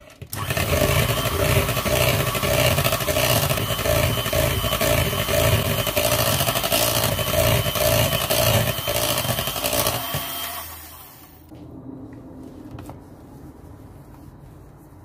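Electric hand mixer running at speed, its beaters whirring and clattering through a thick cream mixture in a plastic bowl, switched off about ten seconds in. Faint scraping in the bowl follows.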